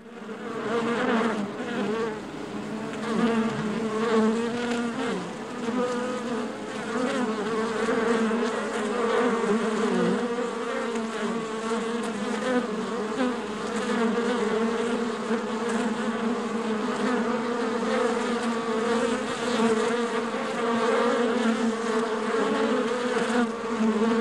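Honeybees massed on the comb of a hive, buzzing together in a steady hum that fades in over the first second.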